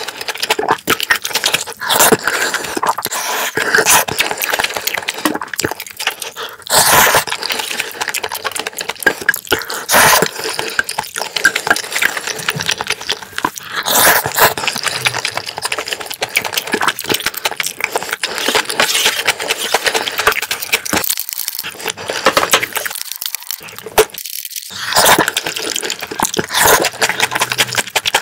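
Close-miked eating sounds of black bean sauce (jjajang) noodles and rice: a dense run of wet chewing clicks and mouth smacks.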